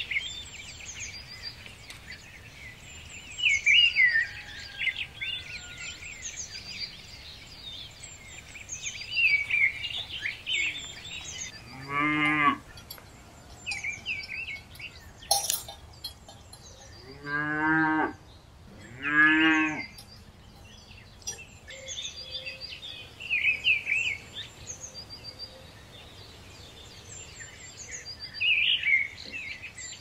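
Cows mooing three times: one call about twelve seconds in and two more, each about a second long, a few seconds later. Birds chirp and twitter through it all. A single sharp click comes in the middle.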